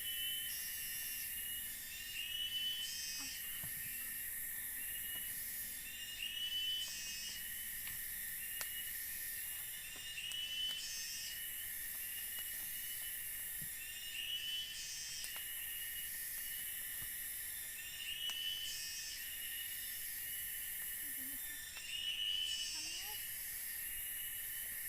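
Forest insect chorus: a steady high whine, with shrill buzzing that swells and breaks off every second or two, and a short chirping call repeated every few seconds.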